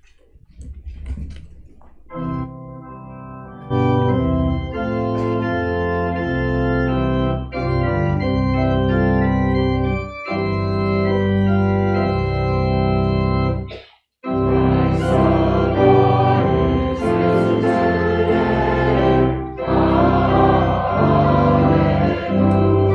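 Church organ playing a hymn introduction: it enters softly about two seconds in, swells to full volume, breaks off briefly around fourteen seconds, then comes back in fuller as the hymn begins.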